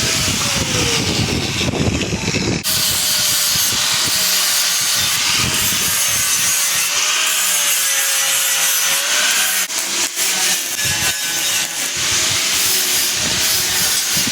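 Loud, steady, harsh hiss of metal fabrication work on an awning frame, with a faint wavering whine running through it.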